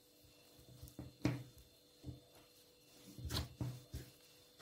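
Hands kneading a flour, salt and water dough in a glass bowl: a few soft, irregular thumps as the dough is pressed and pushed against the bowl, the loudest just over a second in and around three and a half seconds in.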